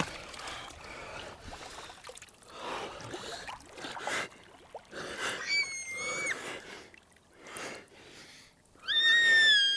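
Icy pond water splashing and sloshing in a hole cut through the ice, with two brief high-pitched squeals, one about halfway through and a louder one near the end.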